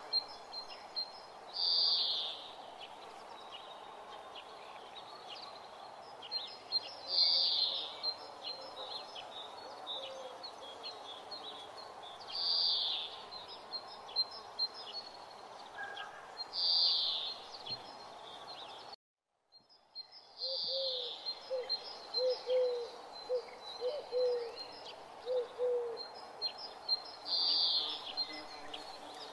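Outdoor birdsong ambience: a bright bird call repeating about every five seconds over scattered chirps and a steady background hiss. There is a sudden brief dropout about two-thirds through, followed by a run of short, low, hooting notes.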